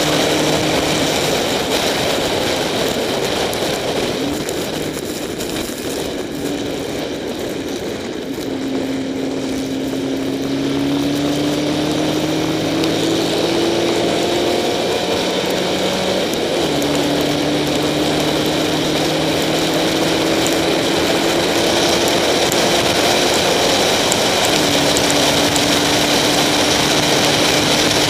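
Onboard sound of a Spec Racer Ford's four-cylinder engine at racing speed, its revs climbing steadily through each gear with upshifts about a second in, about two-thirds of the way through, and again near the end. It eases off and quietens for a few seconds around a quarter of the way in before pulling hard again, over a constant hiss of wind and rain spray.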